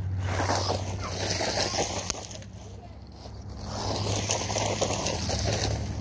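Electric RC monster truck driving over landscape gravel, its motor running and its tyres crunching and scraping over the stones. It goes quieter for a second or so around the middle, then louder again.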